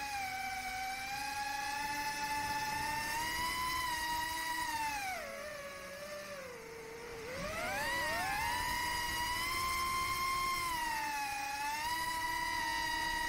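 Whine of a 4-inch FPV quadcopter's brushless motors (BetaFPV 2004 3000kV on 4S) and HQProp three-blade props, steady and high. About five seconds in the pitch sinks as throttle comes off, then swings sharply back up around eight seconds.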